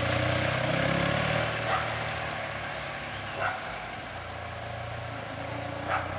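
Motorcycle with sidecar running and pulling away, its engine note steady at first and then fading as it moves off. A few short high chirps sound over it.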